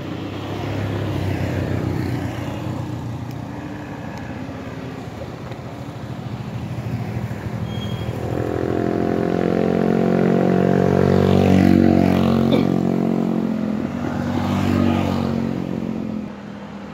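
Motor vehicles passing on the road, engines running. The engine sound builds from about eight seconds in to its loudest around twelve seconds, swells once more and fades near the end.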